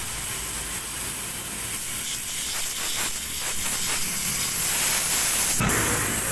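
Water jet from a spray gun hissing steadily as it blasts the fins of a dirty car air-conditioning evaporator, with one sharp click near the end.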